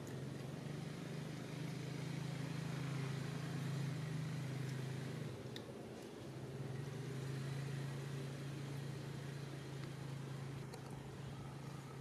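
A steady low motor hum, fading briefly about halfway through and then coming back, with a faint click in the middle.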